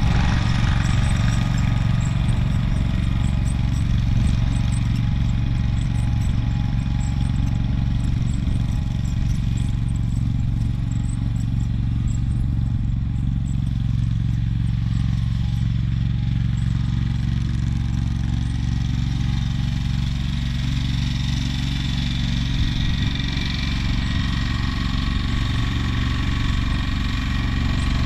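AGCO Allis garden tractor engine running steadily while pulling a tow-behind broadcast spreader, a little fainter around the middle as the tractor reaches the far end and louder again as it comes back.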